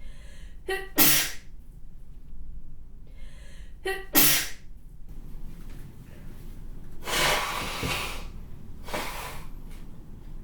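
A woman sneezing twice, about three seconds apart: each sneeze starts with a short voiced intake and ends in a sharp, spraying burst. Two longer breathy rushes of air follow a few seconds later.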